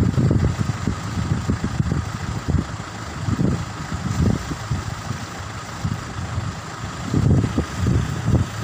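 Wind buffeting the microphone in irregular low gusts over choppy sea, with a steady mechanical hum underneath.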